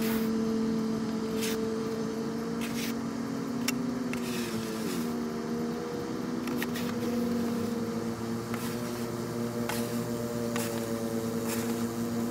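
Kubota BX1850 compact tractor's small three-cylinder diesel running steadily. Its pitch dips about five seconds in, then comes back up. Scattered light clicks run through it.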